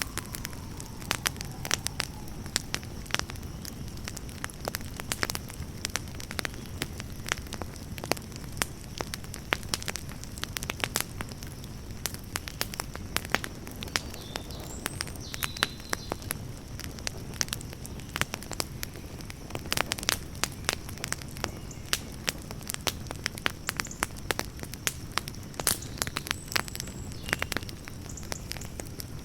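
Campfire burning, with frequent irregular sharp crackles and pops from the burning wood over a steady low noise of the flames.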